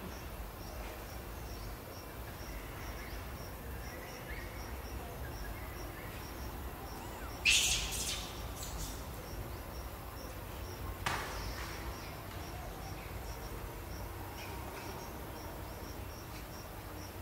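Forest ambience with an insect chirping in a steady, even pulse. About halfway through a brief, sharp, very high-pitched sound stands out as the loudest event, and a fainter sharp one follows a few seconds later.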